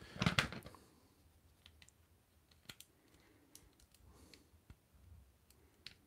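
Faint clicks and ticks of a plastic action figure and its rubber leg connector being handled and worked, a handful of sharp ticks spread over several seconds after a louder rustle of handling at the start.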